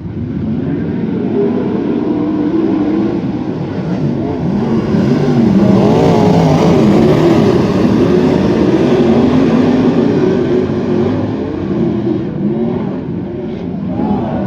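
Several wingless sprint car engines racing past, their pitch rising and falling as they rev on and off the throttle. The sound swells to its loudest in the middle and eases off toward the end.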